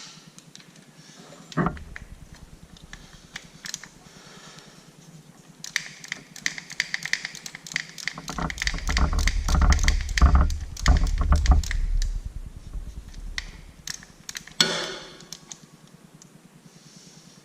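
Hand-tool work on a tractor: a long run of rapid mechanical clicking with a low rumble under it through the middle, and single metal knocks before and after.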